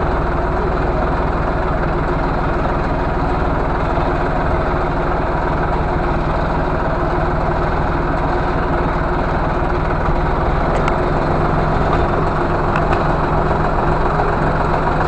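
Engine of a small green John Deere vehicle running steadily at low speed, heard close up from on board as it rolls along the trail.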